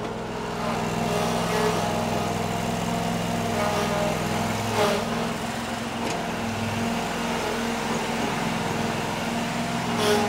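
2004 Toro Z-Master commercial zero-turn mower's 27-horsepower Kawasaki liquid-cooled engine running steadily, its tone shifting briefly about halfway through, with a couple of light knocks.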